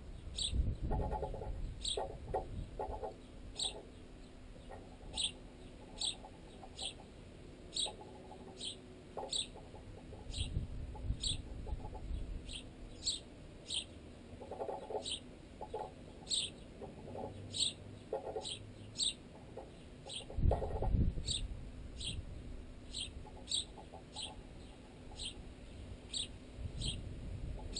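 Sparrows chirping over and over in short, high falling notes, while their pecks at a piece of baguette clamped in a tent guy line carry through the line and tent pole as rapid knocks and a few dull thumps, sounding unnaturally loud.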